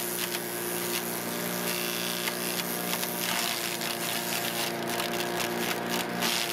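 Cub Cadet CS 3310 gas chipper shredder running steadily, with irregular crackling and rattling as yard waste goes through it, heaviest about five seconds in.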